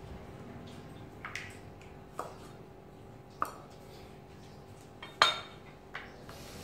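Kitchen knife cutting yardlong beans on a dark round board: about five sharp, separate knocks of the blade against the board, spaced irregularly, the loudest about five seconds in.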